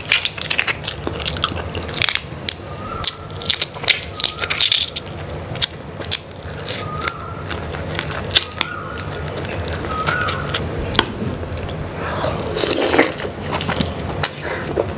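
Close-miked mukbang eating sounds: wet chewing and sucking on saucy crab and prawn, with many sharp wet clicks and crackles of shell and a few short squeaks.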